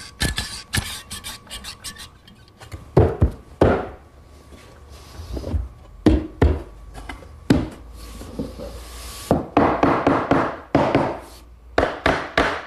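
Wooden workpieces handled on a workbench: irregular sharp knocks of wood against wood, with stretches of rubbing and scraping.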